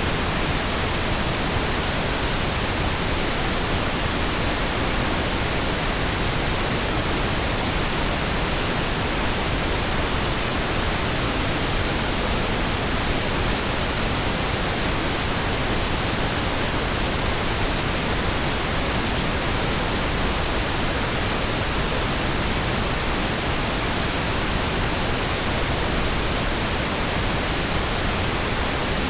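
Steady, continuous pink noise: an even hiss across the whole range with no changes.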